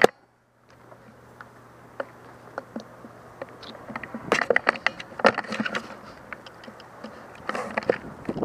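Irregular rustling and crackling of clothing and gear, with boots scuffing on gravelly dirt, as a crouched player shifts position; it grows busiest a few seconds in and again near the end. A single sharp click comes right at the start.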